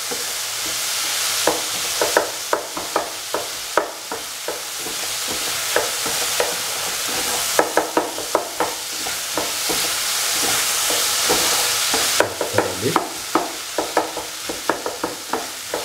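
Bottle gourd and tomato curry sizzling in oil in a pan while a utensil stirs and scrapes it. Frequent sharp clicks and taps of the utensil against the pan come at an irregular pace over a steady frying hiss.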